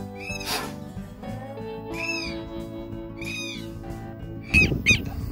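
Background music of sustained, slowly changing chords, with three drawn-out high calls that rise and fall in pitch. About four and a half seconds in, a loud rush of wind noise on the microphone takes over.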